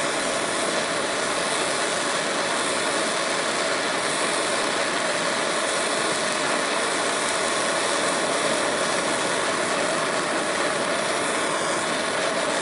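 Handheld gas blowtorch burning with a steady hissing rush as its flame is held on a steel crankshaft web to burn out epoxy.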